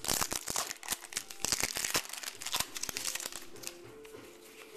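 Baseball card pack wrapper crinkling and cards clicking and sliding against each other as a pack is opened and the cards are flipped through; the handling thins out near the end.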